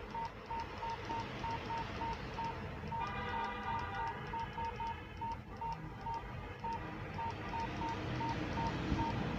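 Versa handheld UHF two-way radio giving a short, high key beep with each press of its scroll button, about two to three beeps a second, as it steps through its menu settings toward the CTCSS tone setting.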